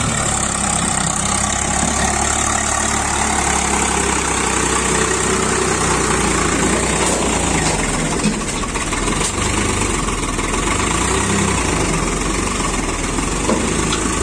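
Swaraj 744 FE tractor's three-cylinder diesel engine running steadily as the tractor drives through deep mud.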